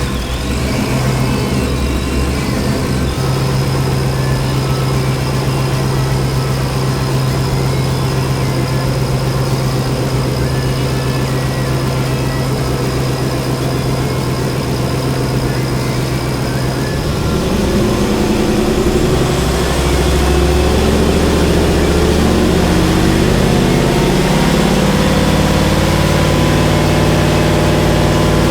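Turbocharged Vortec 8.1 big-block V8 running steadily just after starting up. About 17 seconds in, the engine speed rises and holds at a higher, steady speed.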